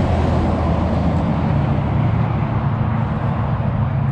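Road traffic noise: a steady rush with a low engine drone.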